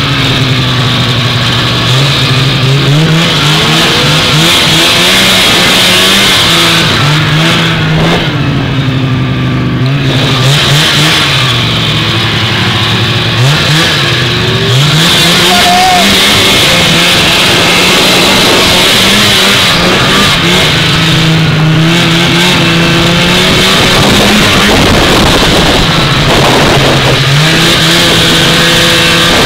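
Vintage two-stroke snowmobile engine running under way, its pitch rising and falling as the throttle is opened and eased, with a drop in revs about eight seconds in and a steadier run in the second half.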